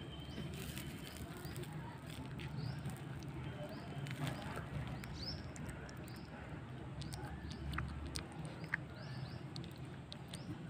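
Faint outdoor background of small birds chirping again and again in short, high notes, with light rustling and a few small clicks.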